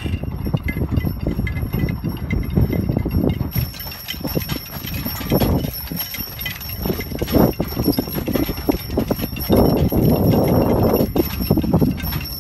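Hooves of a pair of Clydesdale horses clip-clopping on a dirt road, mixed with the rumble and rattle of the stagecoach they pull. Louder stretches of rushing noise come and go, the longest about ten seconds in.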